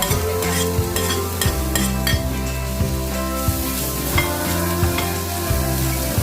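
Stirring in a hot pan: a spatula scrapes and knocks against the pan with irregular clicks while the food sizzles. Steady background music plays underneath.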